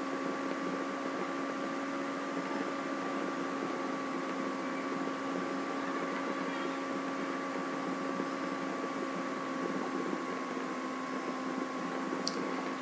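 Steady hum and hiss with a few constant tones, like machine or electrical background noise, and a single faint click near the end.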